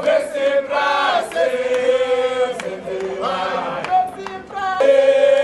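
A crowd of marchers singing a protest chant together, with long held notes that slide between pitches.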